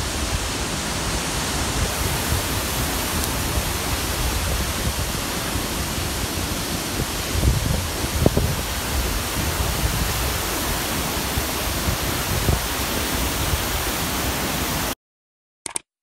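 Krimml Waterfalls, a large mountain waterfall plunging onto boulders, making a steady rushing noise. The sound cuts off about fifteen seconds in, followed by a short click.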